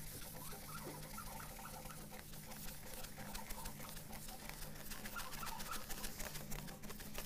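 A rag rubbed briskly back and forth over a lacquered guitar neck with polishing compound: a fast, dry rubbing with small squeaks as the cloth drags on the finish.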